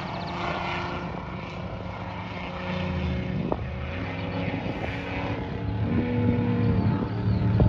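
Engines of off-road race vehicles running hard, their pitch stepping up and down with throttle and gear changes.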